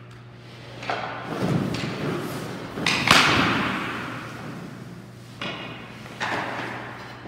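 Hockey pucks being shot and striking with sharp cracks and thuds, about half a dozen hits, each ringing on in a long echo through the ice rink; the loudest hit comes about three seconds in. A steady low hum runs underneath.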